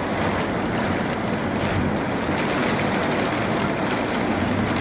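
Heavy thunderstorm rain pouring down steadily in strong wind, an even hiss with no break.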